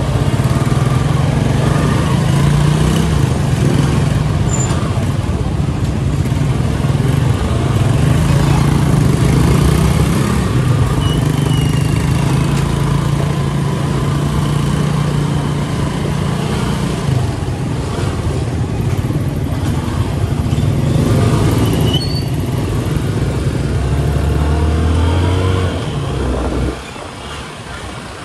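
Engine and road noise of a moving road vehicle heard from on board, the engine note rising and falling with speed. It drops suddenly quieter about a second and a half before the end.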